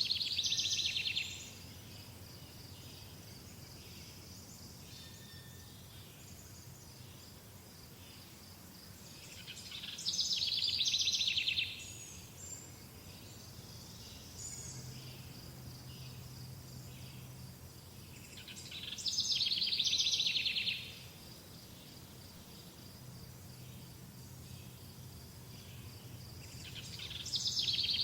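A songbird repeats a short, rapid trilled phrase four times, about every nine seconds, each swelling and then cutting off sharply. Between the phrases a steady high insect tone runs on.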